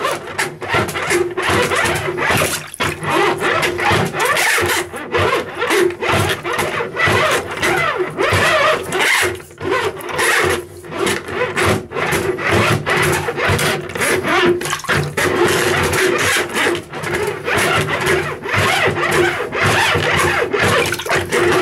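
Coiled steel cable of a handheld drain auger being twisted and worked back and forth down a blocked basin drain, rasping and scraping against the plug hole and pipe in a continuous, uneven grind with brief breaks.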